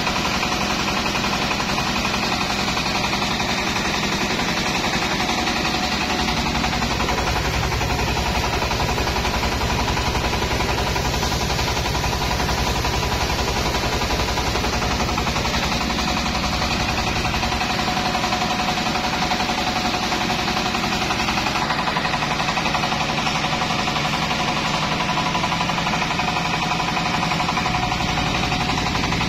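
Truck-mounted rice mill running steadily under load, a Daichi N70 rice polisher working with a Yanmar HW60 husker as grain passes through. The sound is a loud, continuous mechanical clatter with a steady hum.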